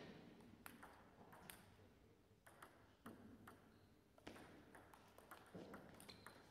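Faint, sharp clicks of a table tennis ball striking the table and the bats: a few scattered taps at first, then the quicker exchange of a rally from about four seconds in.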